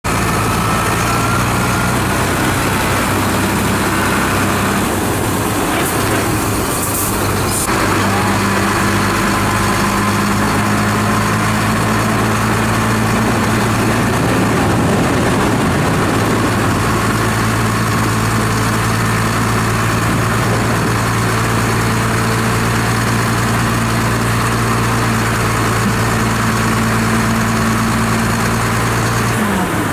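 Heavy diesel engine of a Sinotruk HOWO dump truck running steadily while its hydraulic hoist raises the loaded tipper bed. The engine note drops near the end.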